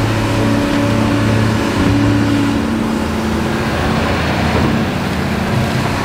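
Cat 395 excavator's diesel engine running steadily under load as the boom swings and the skeleton bucket dumps wet rock.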